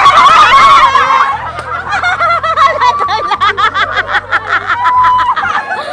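People laughing, with loud overlapping voices at the start, then a run of quick, repeated laughs.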